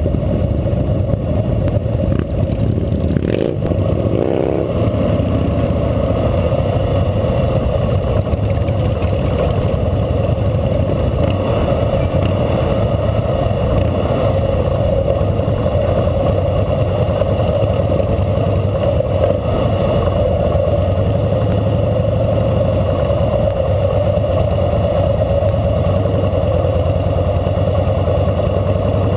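A 2012 Harley-Davidson Fat Boy Lo's air-cooled V-twin running steadily as the bike rolls at walking pace in a column of other motorcycles, whose engines run around it. A short sharp knock comes about three seconds in.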